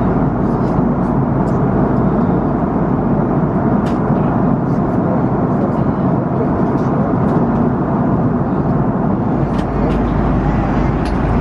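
Steady cabin noise of an Airbus A330-300 airliner at cruise: an even rush of airflow and engine drone, with a few faint clicks.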